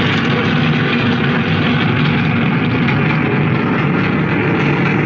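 Steady, loud rumbling noise of a running train, most likely a recorded train sound effect played for the children's train enactment.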